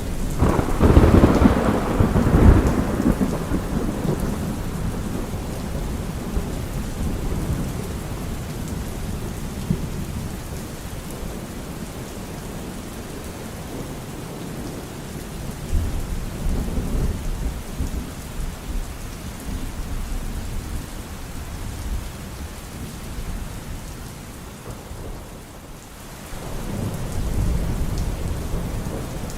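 Steady rain with thunder: a loud close clap rolling into a rumble at the start, further low rumbles midway and again near the end.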